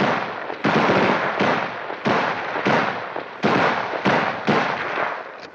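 Gunfire: about seven single shots at uneven spacing, roughly one every two-thirds of a second. Each is a sharp crack that dies away over about half a second.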